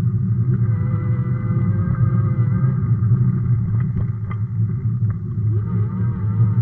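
Steady wind and road rumble from a Sondors electric fat bike riding a broken, potholed road, with a few short knocks around the middle as the bike jolts over bumps.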